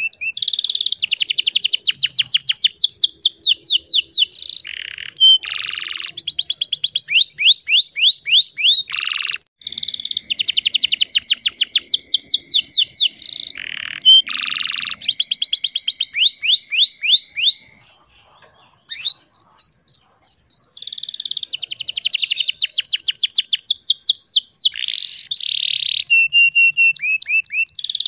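Domestic canary singing: a long song of fast trilled phrases, each a run of rapidly repeated sweeping notes, with a short break about two-thirds of the way through.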